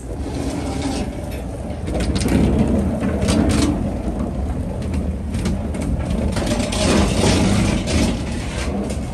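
Street traffic noise with a steady low rumble, swelling twice as vehicles go by, with scattered light knocks.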